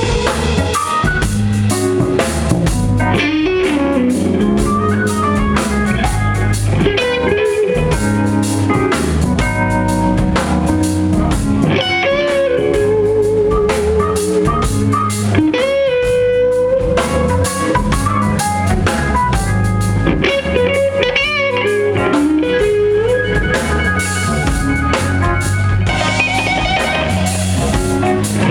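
Live blues-rock band in an instrumental passage: an electric guitar solo with string bends and wide vibrato over bass and drums.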